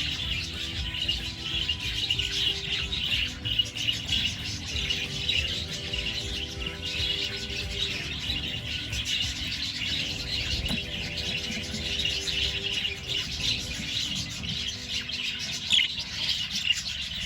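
A flock of budgerigars chattering and chirping continuously, with a constant dense twitter. Music with held low tones plays underneath.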